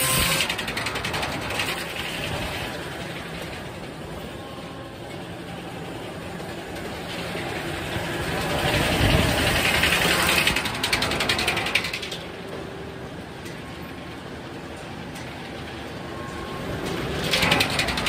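A 56-inch circular sawmill headsaw and its log carriage running: steady machinery noise with a fast ticking in places. It swells louder about halfway through and again near the end.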